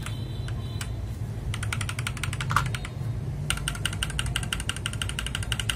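Rapid typing on a Gamakay LK67 mechanical keyboard fitted with Akko Silver switches, in two quick runs of key presses with a short pause between. The key sound is one the typist calls quiet and crisp.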